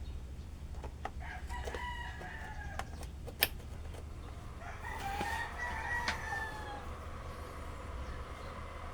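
A rooster crowing twice, each crow about a second and a half long, with a sharp click between the two crows and a steady low hum underneath.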